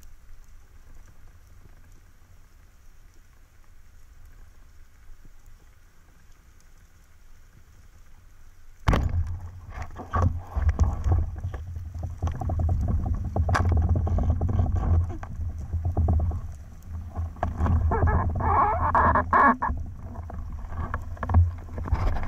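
Underwater, a quiet low rumble and hiss of the sea, then about nine seconds in a sharp crack as a speargun fires. Loud rumbling, knocking and clattering follow as the speared grouper struggles on the line and the diver handles the gun.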